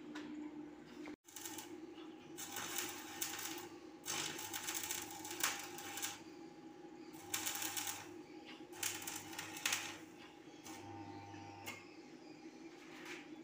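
Stick arc welding on a steel pipe rail: the electrode's arc crackles in several bursts of one to two seconds, each with a low hum, stopping and restarting between them.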